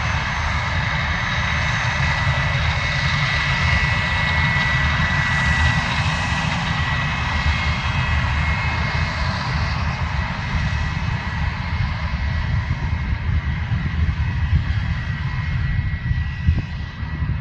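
Bombardier Challenger 3500 business jet's twin Honeywell HTF7350 turbofans running: a steady high whine over a low rumble, the whine easing slightly near the end.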